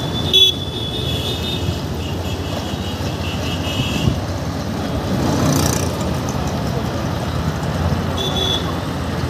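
Street traffic: a steady rumble of motorbikes and other vehicles, with a sharp knock about half a second in.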